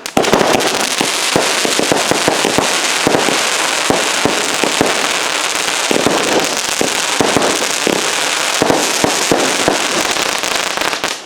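Whiskey Tango consumer firework going off for about eleven seconds: dense crackling with many sharp bangs throughout, stopping abruptly near the end.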